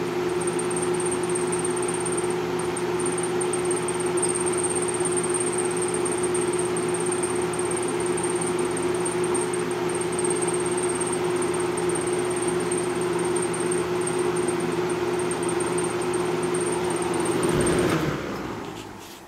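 Lasko 3713 20-inch box fan's plastic-shell Marco motor running with a steady hum and a thin high-pitched squeal, the dry, seizing motor bearings needing oil. Near the end it is switched off and the sound dies away.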